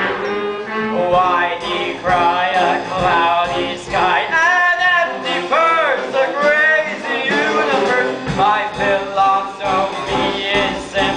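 A musical-theatre song number: voices singing over instrumental accompaniment, the vocal lines swooping up and down in pitch.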